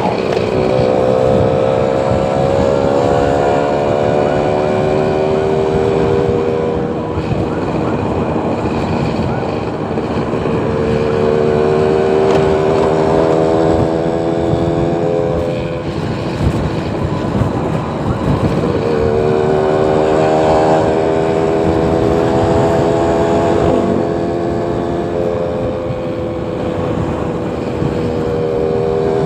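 Road traffic: motor vehicle engines over steady road noise, several passing in turn, each a drawn-out engine note that sinks slightly in pitch as it goes by.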